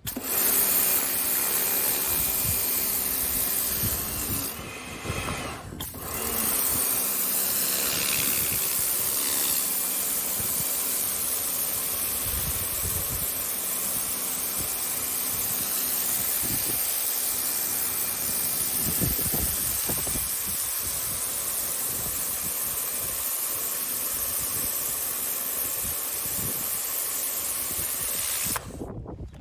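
Pressure washer running, its motor and the high-pressure water spray making a steady hiss, with a brief drop about five seconds in.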